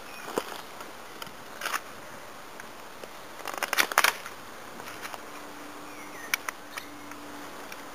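Knife blade whittling wood to carve a tent peg: irregular short shaving and scraping cuts, the densest run about three and a half seconds in. A faint steady hum starts about five seconds in.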